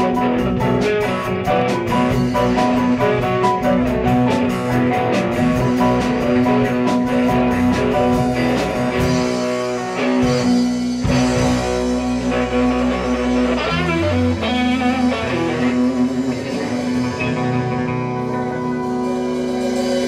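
Live rock band playing: electric guitar, bass guitar and keyboard over a drum kit. About halfway through, the drums and cymbals drop out and the band holds long sustained notes.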